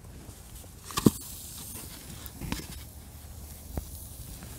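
Handling sounds as a foam meat tray is tipped over a wire camp grill: one sharp click about a second in, then a couple of faint taps, over a low rumble.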